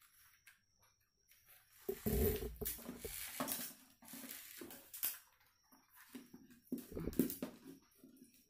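Corrugated cardboard being handled: sheets rustling and scraping against each other, with a few sharp taps and knocks as strips are pushed against a plastic tube. The loudest rustling comes about two seconds in.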